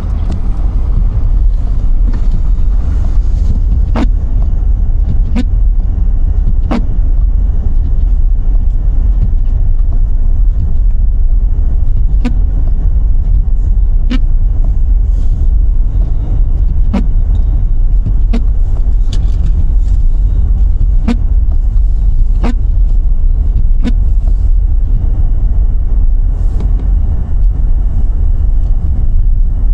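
Car driving on a snowy road: a loud, steady low rumble of engine and tyre noise, with about a dozen sharp ticks at irregular intervals through the middle of the stretch.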